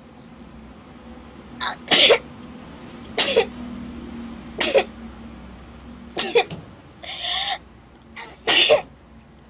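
A person sneezing in a run of about six sharp bursts, one every second or two, set off by sniffing ground pepper.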